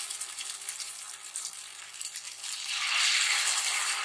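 Potato fingers deep-frying in hot oil in a kadhai, the oil crackling and sizzling around them. The sizzle swells louder about two and a half seconds in as fresh fingers go into the oil.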